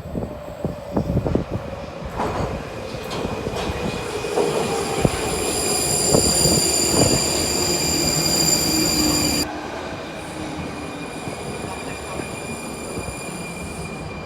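Prague metro train running, a loud rumble with high steady squealing or whining tones and several sharp knocks in the first couple of seconds. About nine and a half seconds in the whine and level drop suddenly, leaving a quieter running rumble.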